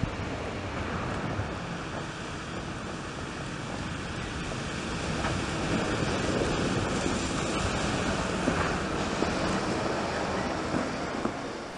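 Mercedes-Benz Arocs 8x8 tipper truck rolling slowly over wet gravel and mud: a steady rushing noise of heavy tyres on gravel and mud, growing a little louder about halfway, with a few small knocks.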